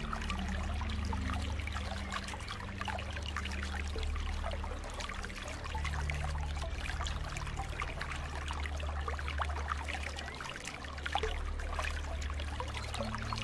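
Swimming pool water trickling and splashing lightly, a constant patter of small splashes, with a low steady hum beneath.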